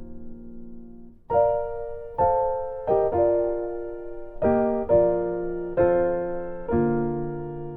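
Background music on a keyboard: a held chord fades out, then from about a second in a new chord is struck roughly once a second, each one ringing and decaying.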